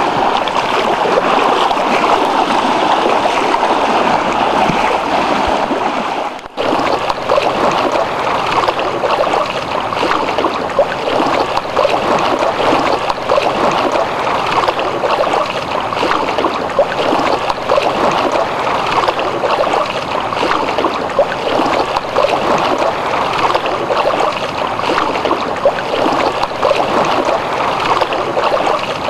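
Small lake waves lapping and washing against a rocky shore in a steady, irregular splashing, with a brief break about six and a half seconds in.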